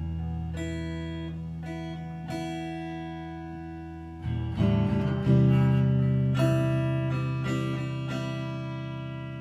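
Squier Stratocaster-style electric guitar playing slow chords that are left to ring, with a few notes picked over them. A chord fades for about four seconds, then two fresh strums come in about a second apart and ring out slowly.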